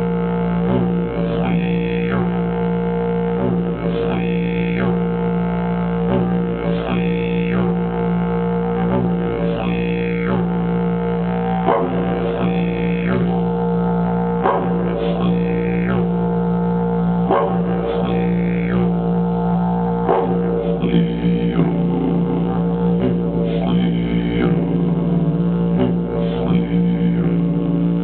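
Agave didgeridoo in B-flat playing a steady drone, held without a break, with a rhythmic pattern of vowel-like sweeps repeating about every two seconds.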